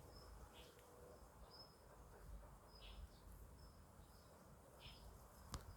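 Near silence, with faint short high bird chirps repeating every second or so and a single sharp click near the end.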